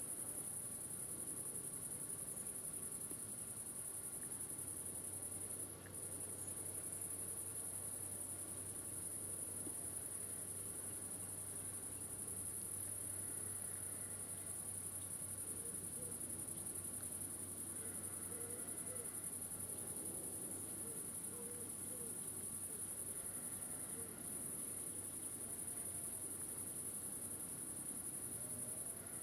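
A chorus of crickets in a summer meadow: a steady, shrill high-pitched trilling that breaks off briefly twice.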